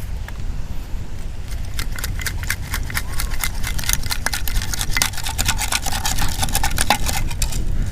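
Wind buffeting the microphone, with a quick run of clicks and rattles starting about a second and a half in and stopping near the end: sand being shaken through a sand scoop to sift out a detected target.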